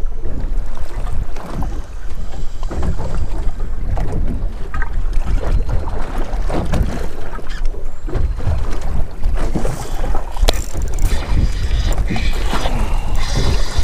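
Wind buffeting the microphone on a small fishing boat on choppy water, with waves lapping at the hull, and one sharp knock about ten seconds in.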